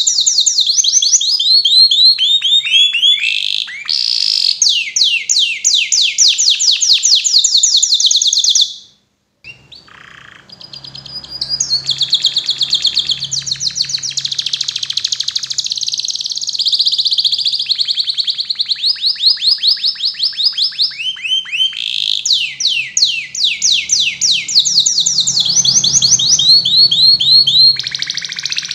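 Domestic canary singing a long, high-pitched song of fast rolling trills and rapidly repeated notes. The song breaks off for about a second around nine seconds in, then resumes.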